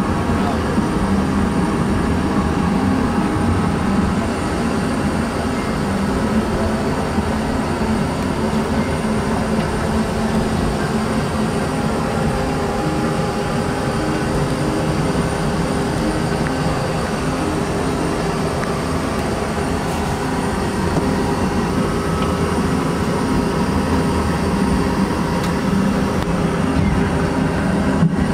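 Steady drone of an airliner cabin in flight, engine and airflow noise heard from inside the lavatory, with a few faint steady hums in it.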